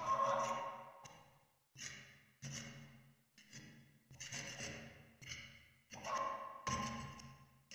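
A series of sharp knocks about once or twice a second, each ringing briefly as it dies away.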